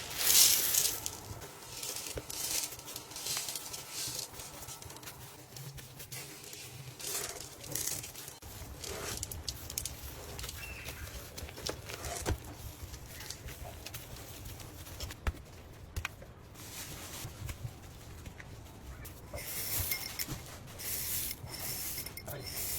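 Close-miked ASMR eating sounds: irregular crunchy bites and chewing, with the loudest burst about half a second in and another run of bites near the end.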